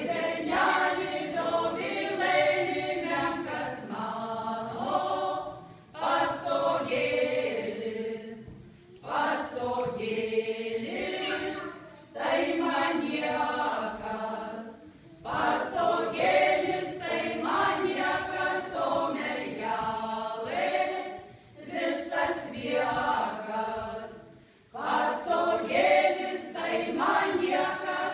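Women's folk choir singing a Lithuanian folk song a cappella, in phrases a few seconds long with brief pauses for breath between them.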